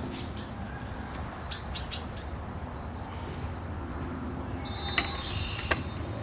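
Faint, repeated high bird chirps, with a few sharp metallic clicks and clinks as a steel brake spring is handled and stretched at a bench vise: a quick cluster about a second and a half in and two more near the end.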